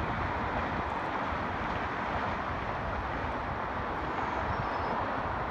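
Steady hum of traffic crossing the Golden Gate Bridge below, cars' tyres and engines blending into one even noise with a low rumble beneath.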